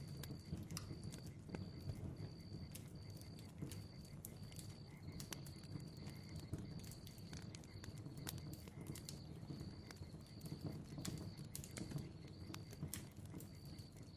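Crackling bonfire: a steady low rumble of flames with frequent sharp pops and crackles. A high chirping tone pulses on and off about twice a second throughout.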